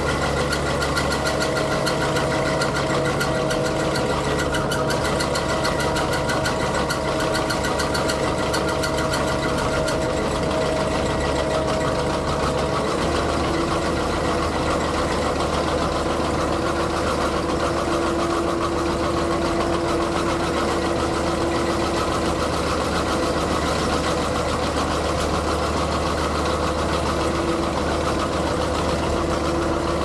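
Skid steer engine running steadily while powering a hydraulic sickle bar mower, with a steady whine that steps down in pitch about halfway through.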